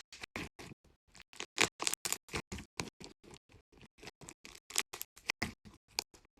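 Slime being pressed and poked by hand, making a quick, uneven run of crisp clicks and pops, several a second.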